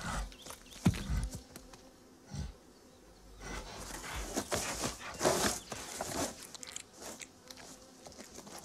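Brown bear working at a tree trunk: rough scraping and rustling of fur and claws on bark. There are a couple of dull thumps in the first few seconds, then a busier run of scratching from about halfway through.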